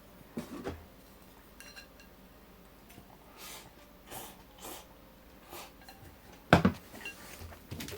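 Tableware knocks and clinks during a meal: dishes and utensils set down and tapped, with a few short soft eating noises between them and one louder knock about six and a half seconds in.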